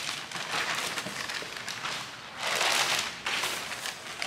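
Clear plastic packaging bag crinkling and rustling as a rear diffuser is pulled out of it, with a louder surge of rustling about two and a half seconds in.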